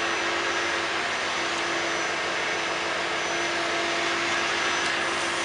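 A steady fan-like whir with a constant hum-tone under it, like a motor or blower running at an even speed.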